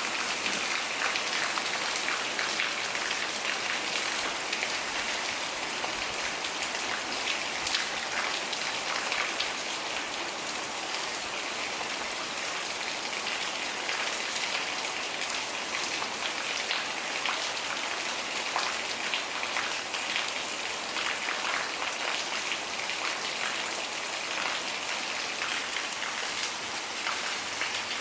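Steady rain falling, with many separate drops heard as fine ticks over an even hiss.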